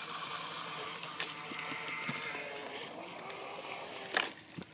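A LiteHawk Charger RC speedboat's small electric motor whines faintly across the water over a steady hiss; the boat is running slow on a low battery. Two sharp clacks come about four seconds in.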